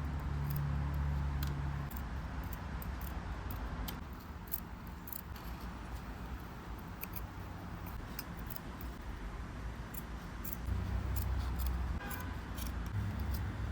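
Scattered small clicks and rustles of hands handling and positioning a fabric shift boot in a car's centre console, with a low rumble near the start and again near the end.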